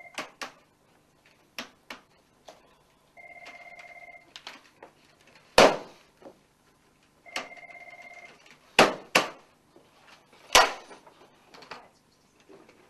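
A telephone ringing: short warbling electronic rings about a second long, repeating every three to four seconds. Between the rings come several sharp, loud bangs, the loudest about halfway through and three more in the later part.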